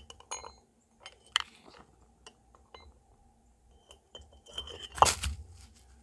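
Light metal clinks and taps as multitool pliers work around the burner's metal stand, then a louder clunk and scrape about five seconds in as a clay brick is lifted off the stove stand and set down.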